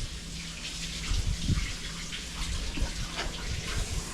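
Kitchen tap running into a sink, water splashing over something being rinsed by hand, with small knocks in the sink. The water shuts off at the very end.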